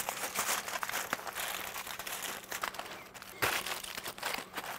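Aluminum foil crinkling and crumpling as it is folded and pressed tightly around a smoked chuck roast, with one louder crunch about three and a half seconds in.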